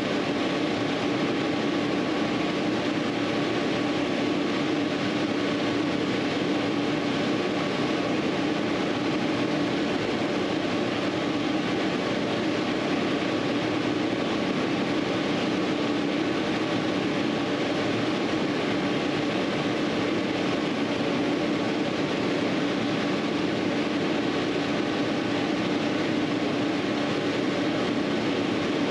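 A steady mechanical hum with a constant low tone over an even noise, unchanging throughout.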